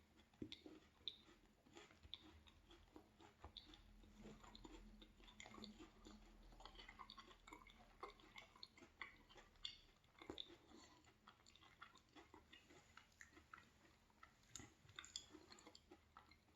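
Faint close-up chewing of a mouthful of Milka chocolate-coated cookies eaten together as a sandwich, with many small irregular crunches and mouth clicks.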